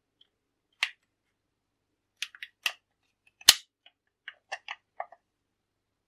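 Hard plastic clicking and snapping as a small plastic clip is worked onto a DeLonghi ESAM Magnifica's plastic brew unit: scattered light clicks, one sharp snap about halfway through, then a quick run of smaller clicks.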